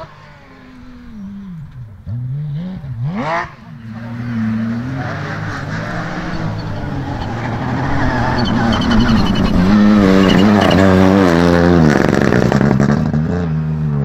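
Ford Fiesta rally car at full attack on a gravel stage: the engine revs hard and changes pitch in steps through the gear changes as the car approaches, gets loudest as it passes close about ten seconds in, and drops in pitch as it goes away. Before that, about three seconds in, there is one brief sharp rev that rises and falls.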